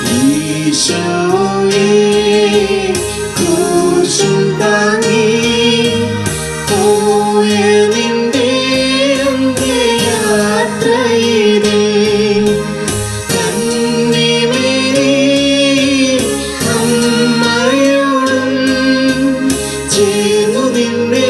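Christian devotional song: a voice singing a slow melody with vibrato over sustained instrumental accompaniment.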